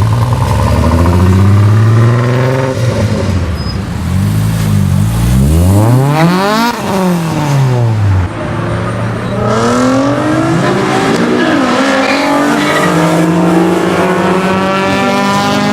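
Car engines revving hard as cars pull away and pass close by, the pitch climbing and falling through the gears, with one car sweeping past about six to seven seconds in and another accelerating hard near the end.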